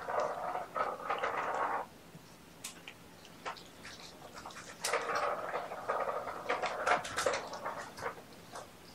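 Scratchy rustling and light taps from a kitten pawing and nosing right at the microphone. It comes in two spells of a couple of seconds each, the second starting about five seconds in.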